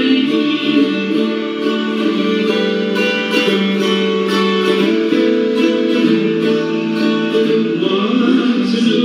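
Live acoustic music: an acoustic guitar strummed through a passage of a song.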